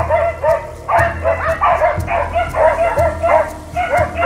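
Laika hunting dogs barking rapidly and without pause, several barks a second, baying a bear that has taken cover in a dense thicket.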